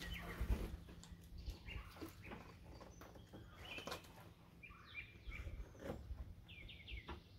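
Faint knocks and rustles of a hand working behind a car headlight housing to twist out the high-beam bulb, the loudest about half a second in. Small birds chirp briefly a few times in the second half.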